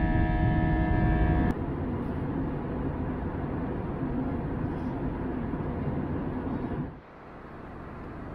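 Steady cabin noise of an Airbus A321 airliner in cruise, the engine and airflow noise heard at a window seat. A steady hum of several held tones cuts off about a second and a half in, and the noise drops to a quieter level about a second before the end.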